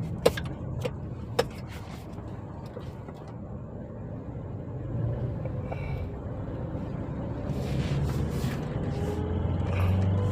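Car engine running, a low steady hum that slowly grows louder, with a few sharp clicks in the first second or so. The engine is being run as a test to see whether a cylinder 1 misfire comes back.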